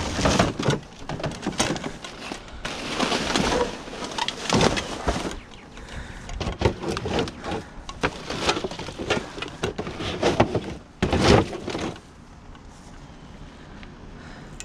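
Junk being rummaged through and pulled out of a dumpster: irregular knocks, clatter and rustling of objects being shifted, with a loud cluster of knocks about eleven seconds in, then quieter for the last few seconds.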